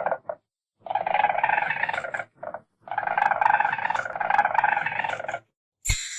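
Weasel calling: a few short calls, then two long, rough chattering calls lasting about one and a half seconds and two and a half seconds, with a short call between them, and a high-pitched squeal starting near the end.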